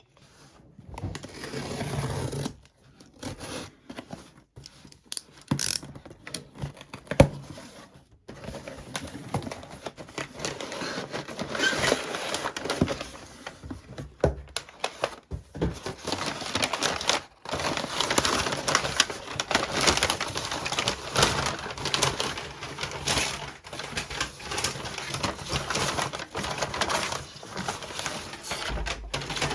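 Packaging being handled and unwrapped: crinkling and tearing with many small clicks and taps, in a small room. One sharp, louder click stands out about seven seconds in.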